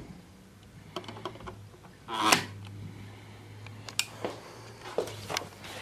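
Clicks and handling noises at a wall thermostat, with a louder rustle about two seconds in and a few sharp clicks later, over a low steady hum that starts about a second in.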